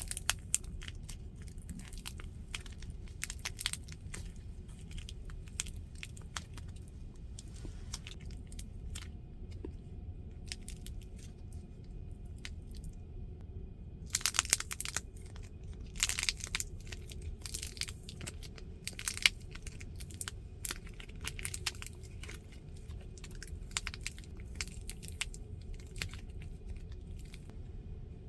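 Crunching and crackling of crisp duros (puffed wheat snacks), in scattered sharp crackles with louder bursts about halfway through and near the end.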